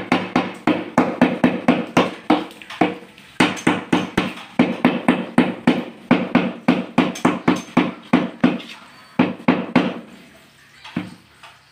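Rubber mallet tapping a large polished countertop tile to bed it into mortar: quick runs of hard knocks, about three to four a second, each with a short ring from the slab, stopping shortly before the end.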